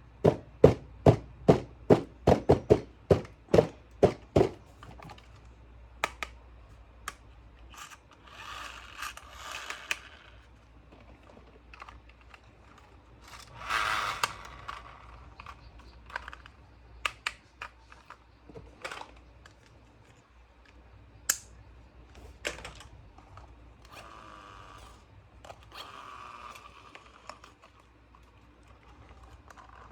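Clicking and rustling from handling small plastic toys: a quick run of sharp clicks at the start, then scattered single clicks with a few bouts of rustling and scraping.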